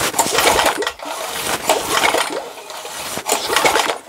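Small air-cooled single-cylinder engine being turned over by hand, in about three rasping surges roughly a second and a half apart. It gives no spark at the plug, and the owner suspects the points under the flywheel.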